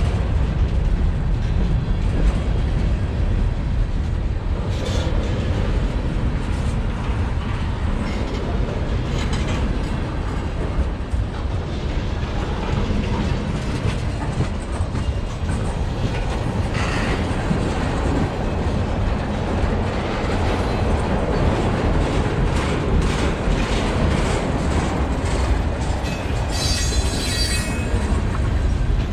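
Freight cars of a slow-moving mixed freight train rolling past, with a steady low rumble of wheels on rail and repeated clicking over rail joints. A brief high-pitched noise comes near the end.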